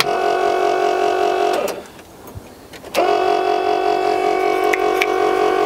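Starter motor of an old bucket truck cranking in two bursts of about three seconds each, a steady whine that winds up at the start and runs down at the end, without the engine catching.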